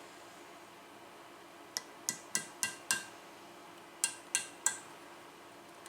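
Light metal-on-metal taps with a short ring, struck on the edge of a bolt that broke off flush, to turn it loose without drilling. Five quick taps, a pause, then three more.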